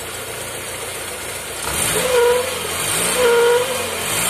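Toyota Corolla Twincam engine idling with a repeated honking tone, like a pinched trumpet, coming from the PCV valve and its hose. The tone sounds about every second and a quarter, starting about two seconds in. It comes from a loose PCV valve sitting in a hardened, brittle rubber grommet, which leaves its hose pinched.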